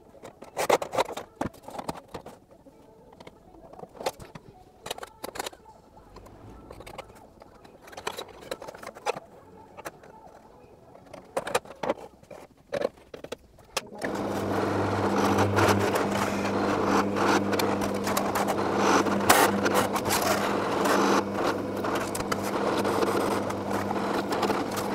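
Scattered light clicks and knocks of handling work, then about halfway through an electric workshop machine starts and runs with a steady motor hum and whirr.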